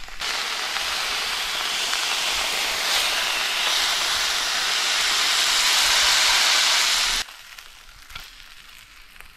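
Coral trout wings sizzling loudly as they fry in soy sauce and oil in a pan. The sizzle cuts off suddenly about seven seconds in.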